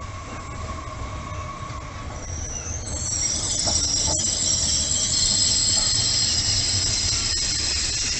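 TER regional passenger train pulling into the station and braking alongside the platform, its running gear rumbling. From about three seconds in, a loud high-pitched squeal of wheels and brakes rises as it slows to a stop.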